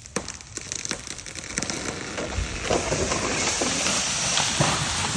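Water oak going over: the hinge wood cracks and pops, then a rising rush of branches and leaves sweeping through the air, ending in a heavy thud as the tree hits the ground near the end.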